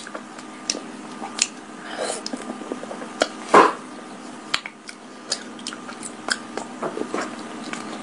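Close-miked chewing of sticky glutinous rice balls coated in chocolate sauce: short wet mouth clicks and smacks, with one louder bite about three and a half seconds in.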